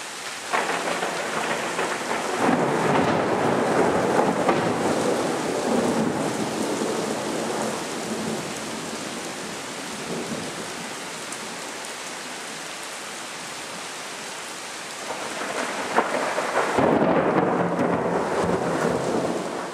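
Thunderstorm: steady heavy rain with rolling thunder that swells in the first several seconds and again near the end, with a sharp crack just before the last swell.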